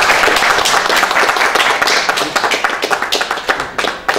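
Applause: dense hand clapping that thins into scattered single claps near the end.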